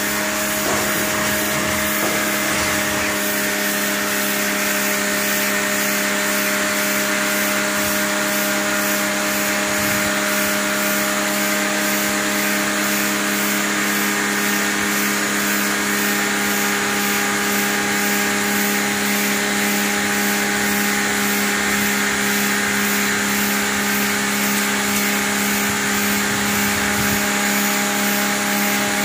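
Takara Europa high-pressure washer running steadily under load: a constant motor-and-pump hum under the hiss of the fan jet spraying onto concrete, blasting algae off the slab.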